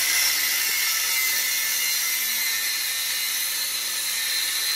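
Handheld angle grinder cutting through a bent metal steering stem of an electric scooter: a steady, high-pitched grinding whine with a hiss, holding an even pitch and level.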